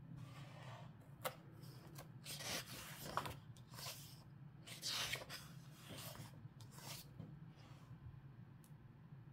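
Paper pages of a book being turned by hand: a series of faint rustles and flicks of paper that die away near the end, over a steady low hum.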